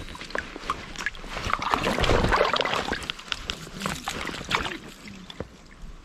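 Water splashing and sloshing as a hooked kokanee is brought to a landing net at the water's edge, with small clicks and knocks of tackle handling.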